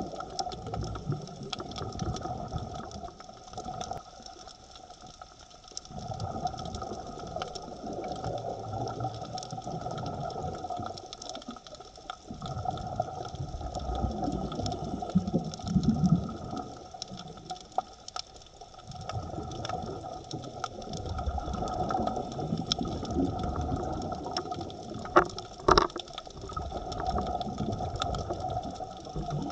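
Underwater sound of a scuba diver breathing through a regulator: low bubbling surges of exhaled air every several seconds, with short quieter pauses between them, over a steady mechanical hum. Two sharp clicks come near the end.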